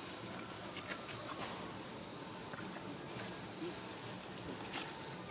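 Insects droning steadily at a high, even pitch, with a few faint scattered ticks beneath.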